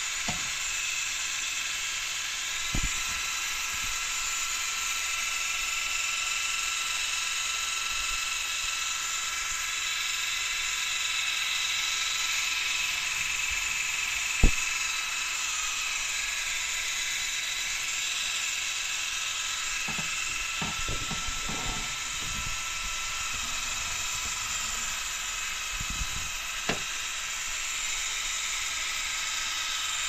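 Steady high-pitched electric whine with a hiss, from the mist maker blowing fog through a tube into a frog enclosure. A few light knocks come through, the sharpest about halfway.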